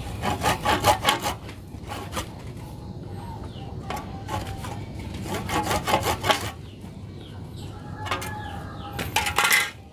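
Hand pruning saw cutting into the woody trunk of a mustam bonsai with quick back-and-forth strokes. The strokes come in several bursts, and the last and loudest is near the end.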